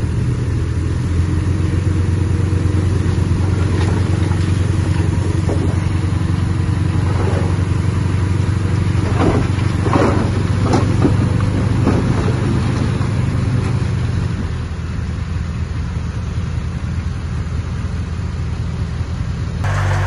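Heavy diesel engine of earthmoving machinery running under load with a steady low drone. A few short higher-pitched sounds come about halfway through, and the engine eases off slightly about two-thirds of the way in.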